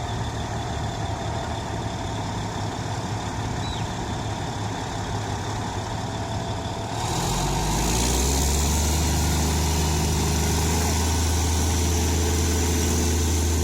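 Heavy diesel engine idling, then revving up about seven seconds in and holding a louder, higher steady speed.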